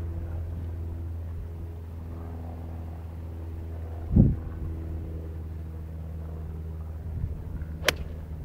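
An 8 iron striking a golf ball off grass: one sharp click near the end. Under it is a steady low hum, and about halfway through comes a dull low thump, the loudest sound.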